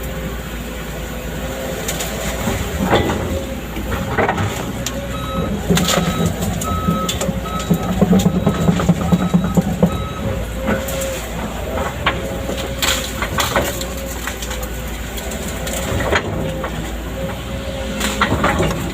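Excavator working: its diesel engine runs steadily while metal parts clank and knock at irregular moments. In the middle the engine drones louder and heavier for a few seconds, as when it works under load, with a short squeak repeating several times.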